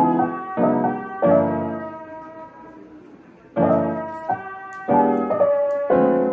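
Soft background piano music: slow chords struck one after another, each ringing out as it fades, with a longer pause near the middle.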